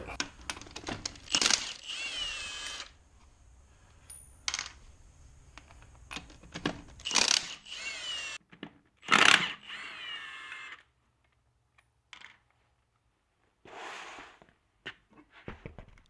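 Cordless impact wrench spinning wheel lug nuts off in several short runs of about a second each, with sharp metallic clicks in between.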